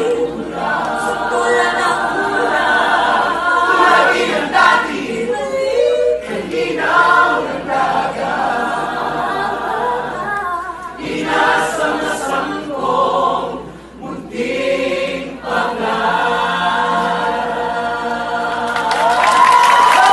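A musical theatre cast singing together in chorus on stage. About nineteen seconds in, the audience starts cheering and shouting over the end of the song.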